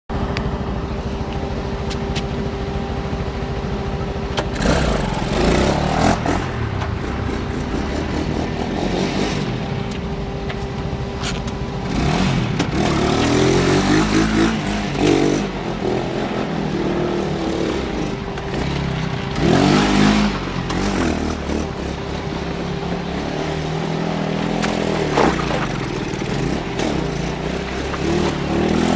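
200cc ATV engine running, revved up several times and dropping back between revs.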